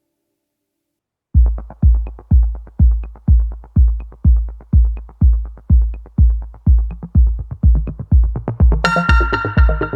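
Electronic background music: after about a second of silence, a heavy bass kick drum comes in at about two beats a second, and synthesizer parts join it near the end.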